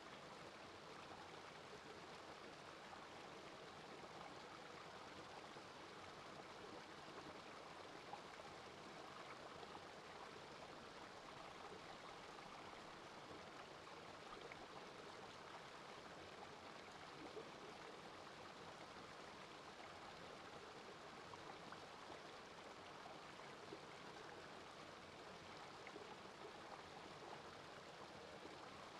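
Small rocky brook spilling over stones in a little cascade: a faint, steady rush and babble of running water.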